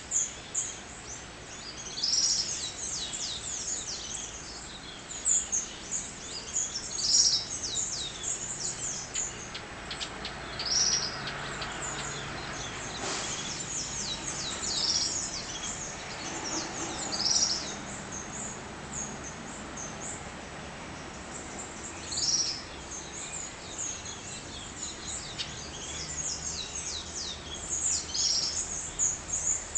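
Many birds chirping together in a dawn chorus, short high chirps overlapping without a break, with one louder short call repeating every few seconds.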